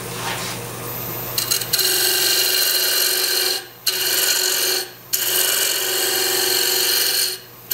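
Wood lathe running, then a turning tool cutting into the spinning spindle blank from about two seconds in: a loud hiss of shavings in three passes with short breaks between, as the grooved surface is turned back to a plain cylinder.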